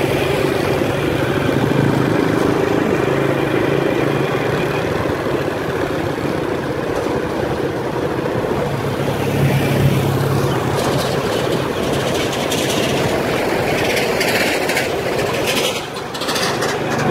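Motorbike engine running steadily at cruising speed, mixed with wind and road noise.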